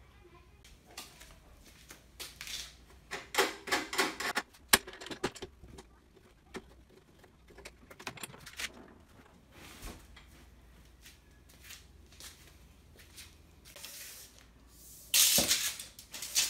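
Handling noises from folding down a lawn mower's handle and laying out a tape measure: scattered clicks, knocks and rattles, with a louder rasping burst about a second before the end.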